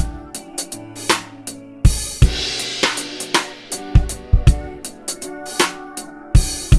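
Drum kit playing a steady rock-style beat: bass drum, snare and hi-hat, with a cymbal crash about two seconds in that rings for over a second.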